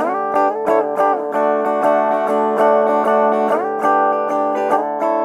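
Instrumental background music: a plucked-string tune with held notes, some of which slide up in pitch.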